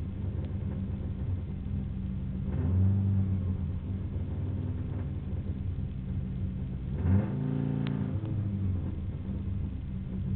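Subaru engine heard from inside the cabin, idling with the car standing still and blipped twice: a short rise in revs about two and a half seconds in and a sharper rev about seven seconds in.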